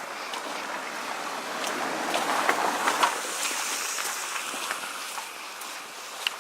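A passing car, its tyre and road noise swelling to a peak about three seconds in and fading away, with a few faint footsteps.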